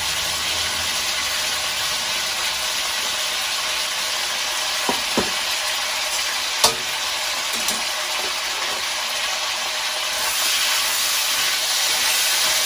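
Pork pieces sizzling as they fry in a wok, a steady hiss that grows a little louder near the end. A few sharp clicks and scrapes of a utensil against the pan come around the middle.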